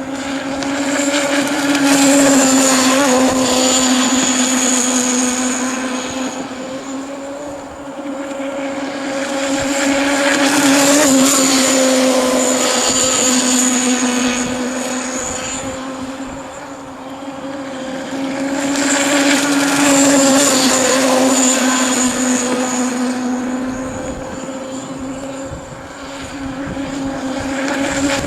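RC power boat's Zenoah G-25 26 cc single-cylinder two-stroke petrol engine running at high, steady revs, getting louder and fainter as the boat makes three passes, loudest about 2–5 s in, again near the middle, and about 20 s in.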